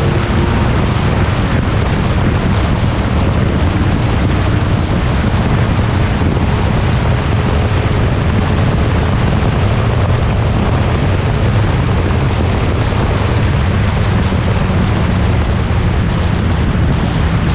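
Huffaker Genie Mk13 racing car's engine running at speed: a loud, steady low rumble with no let-up.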